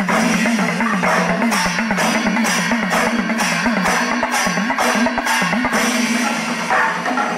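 Background music: a low wavering tone under percussion, with sharp jingling hits about twice a second through the middle.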